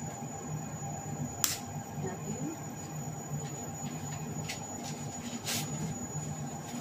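Steady kitchen background hum with a thin high whine, broken by two sharp clicks, about a second and a half and five and a half seconds in.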